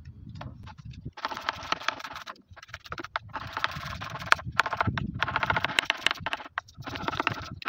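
Large kitchen knife slicing an onion into half-rings on a wooden cutting board: quick runs of blade taps on the board, each about a second long, with short pauses between runs.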